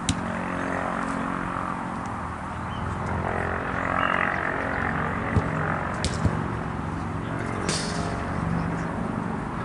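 Outdoor ambience of a five-a-side football game on artificial turf: a few sharp thuds of the ball being kicked, two close together just past the middle, over a steady low rumble.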